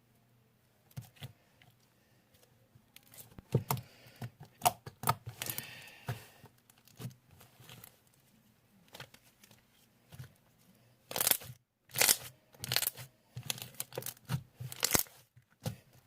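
Homemade glue slime being stretched, squeezed and pulled apart by hand, giving irregular sticky pops, clicks and tearing sounds in two busy spells with quieter stretches between.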